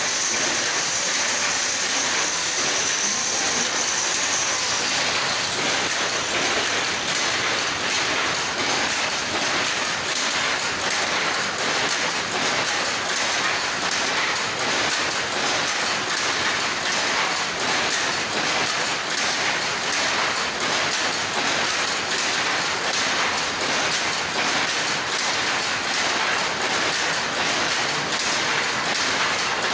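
Dense, steady clatter of power looms running, a continuous rapid ticking with no pauses.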